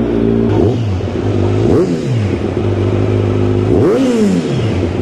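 Motorcycle engine running at idle and blipped on the throttle about three times. Each rev rises and falls back, and the biggest comes near the end.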